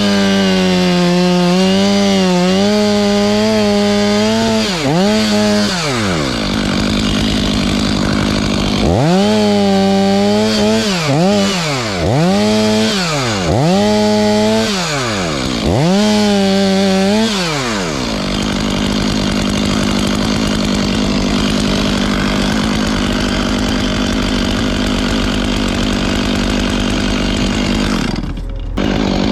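Two-stroke chainsaw revving to full throttle and dropping back several times, then running steadily for about ten seconds, with a brief drop near the end.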